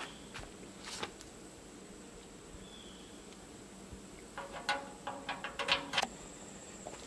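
Small metal clicks and clinks as a latch and its hardware are fitted by hand onto a steel smoker firebox door: one light click about a second in, then a quick run of taps with a brief metallic ring from about four to six seconds in.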